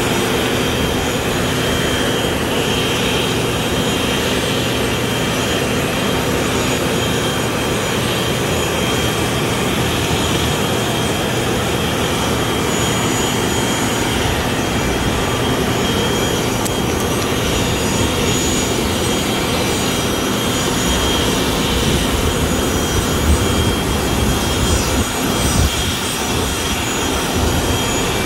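Distant business-jet turbofan engines running steadily, a continuous rush with a steady high whine. Some low buffeting, like wind on the microphone, comes in near the end.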